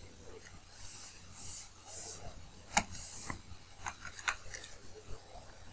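Faint scratching of a stylus writing on a tablet, with a few short clicks or taps.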